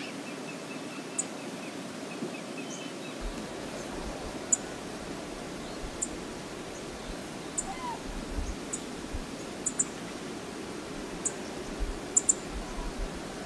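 Steady rush of a wide river flowing over riffles, with scattered sharp, faint high clicks, a few brief bird chirps in the first couple of seconds, and occasional low rumbles from about three seconds in.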